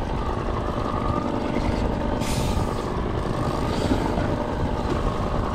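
Fishing boat's motor running steadily at trolling speed, a constant hum over a haze of noise, with a brief hiss about two seconds in.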